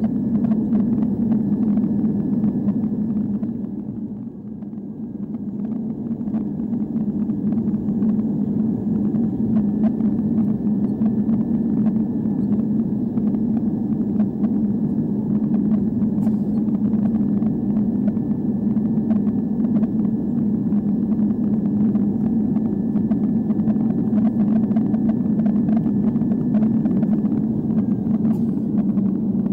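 Airbus A320 cabin noise on final approach and landing: a steady low rumble of the engines and airflow with a faint steady whine above it. The level dips briefly about four seconds in, then holds steady.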